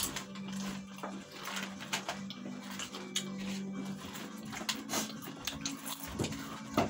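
Crinkling and crunching from chip packets being handled and crisp chips being eaten, a dense run of short crackles, over a steady low hum that fades about four seconds in. A sharper knock comes near the end.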